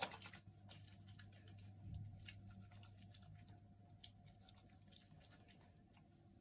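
Near silence with faint, scattered soft wet ticks from facial cleanser being rubbed between the palms and massaged over the face, over a low steady hum.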